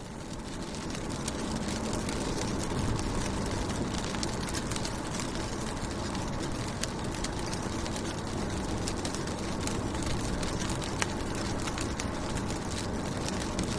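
Raindrops hitting a car window: a steady wash of rain with many sharp individual drop taps over a low rumble.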